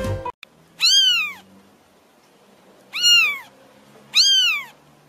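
Young kitten mewing: three short, high mews, about a second in, at three seconds and just after four seconds, each rising and then falling in pitch.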